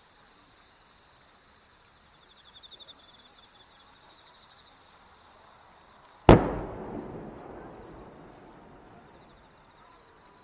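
A single firework bang about six seconds in, rolling away in echoes over about three seconds.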